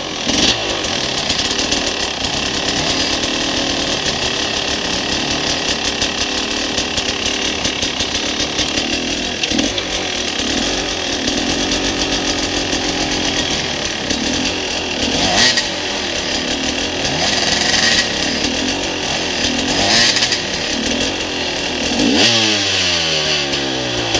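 Enduro dirt bike engine running under load on a rough trail climb, the revs rising and falling with the throttle. There are a few sharp knocks and a marked change in revs near the end.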